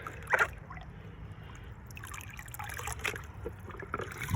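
Water trickling and dribbling in small irregular splashes as the last of a pail of creek water is tipped out.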